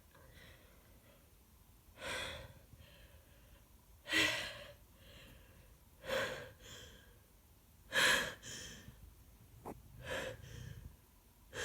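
A woman with a heavy head cold gasping in a sneeze build-up: five sharp, quick inhalations about two seconds apart, each followed by a softer breath, without the sneeze yet coming.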